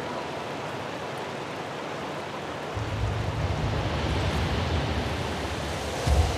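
Rushing water of a shallow mountain river running over stones, a steady hiss. About three seconds in a deep low rumble joins it, and a short low thump comes near the end.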